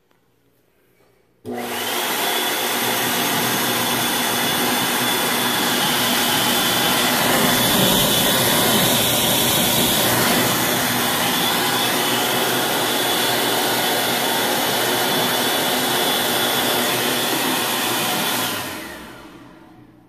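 ASI electric hand dryer switching on suddenly about a second and a half in and running steadily: a loud rush of air over a high motor whine and a low hum. Near the end it shuts off and spins down over a second or two.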